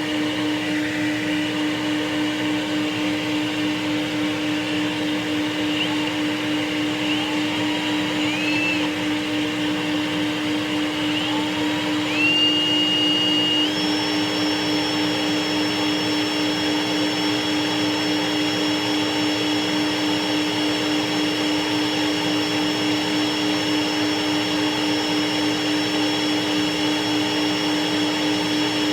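An electric motor running steadily with a strong hum and whine while its armature's commutator is cleaned with brown armature chalk. Short rising squeals come several times between about 6 and 13 seconds in, and from about 13 seconds a higher steady whistle joins and holds.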